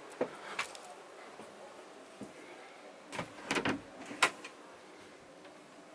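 A camper van's wooden bathroom door being opened by its lever handle: a cluster of knocks and clicks about three seconds in, ending in a sharp latch click a little after four seconds, with a couple of lighter clicks right at the start.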